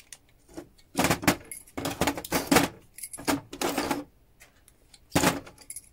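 Small metal relay parts, iron rings, magnets and contacts, clicking and clattering in short clusters as a relay switch is pulled apart by hand, with one last sharp click about five seconds in.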